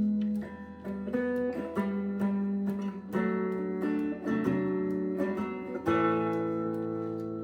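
Acoustic guitar picking slow chords, an instrumental song intro with a new chord or note about every second.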